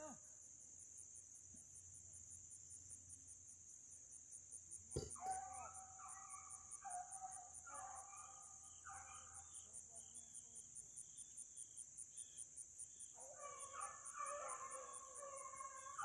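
Faint baying of a pack of beagles running a rabbit's track, the first voices coming in about five seconds in and several dogs giving tongue together near the end. Under it, a steady high chirring of insects, and a single sharp click about five seconds in.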